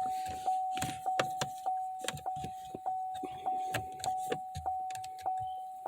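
Buick Verano's in-cabin warning chime dinging over and over, a single-pitched ding repeating evenly about one and a half times a second, each ding fading before the next.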